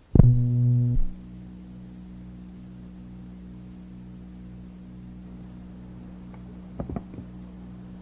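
Music from a cassette album: a loud low tone comes in just after the start and cuts off after about a second, giving way to a steady low drone of several held tones. A short cluster of clicks sounds about seven seconds in.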